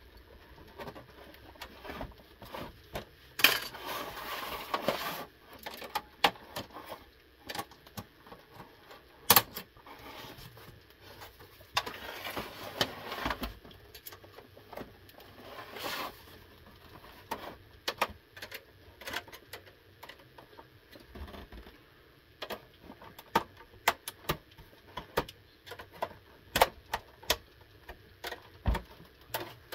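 Irregular clicks, taps and rattles of plastic and metal as an Xbox 360 S console casing is handled and worked open with a small tool. There are two longer scraping stretches, about four and twelve seconds in.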